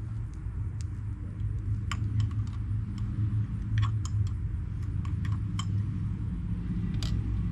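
Irregular light metallic clicks and clinks of a hand tool working on a Ford 302 V8 on an engine stand, some in quick little runs, over a steady low hum.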